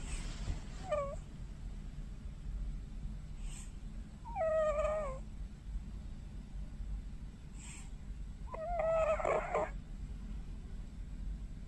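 Cat snoring with a whining, squeaky note: a short call about a second in, then two longer, fairly steady-pitched calls about four and nine seconds in.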